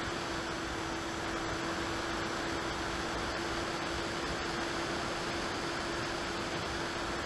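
FPV model aircraft in flight, heard from its onboard camera: a steady rush of airflow noise with a constant motor and propeller drone at unchanging throttle.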